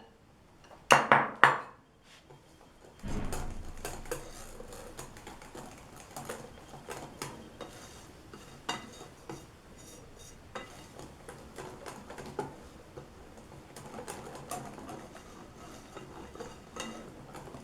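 Kitchen utensils and a mixing bowl clinking and scraping lightly as flour is added to cake batter, with a louder clatter about a second in, then a faint rustling dotted with small clicks.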